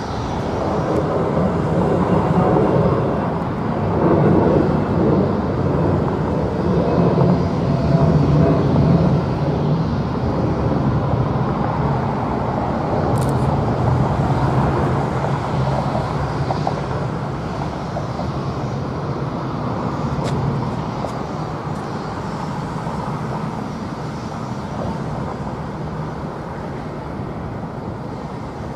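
Jet airliner engines running at taxi power as the planes roll past on the taxiway: a steady engine noise, loudest between about four and nine seconds in, then slowly easing off.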